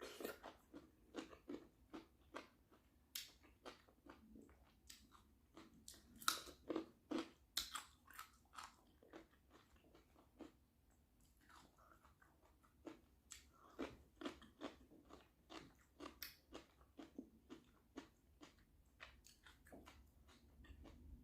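Close-miked eating sounds: irregular wet chewing, smacking and biting as peeled shrimp in seafood-boil sauce is eaten.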